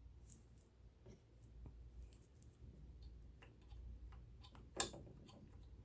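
Faint scattered clicks and light taps of metal sewing-machine parts being handled, with one sharper click about five seconds in, over a low steady hum.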